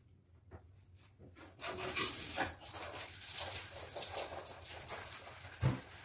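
Hands scrubbing soapy, lathered hair: an irregular rubbing, squishing noise that starts about a second and a half in. A single dull thump comes near the end.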